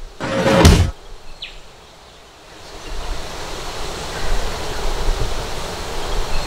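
A brief loud whoosh, then a steady outdoor rush of wind and flowing river water that rises about two and a half seconds in and holds.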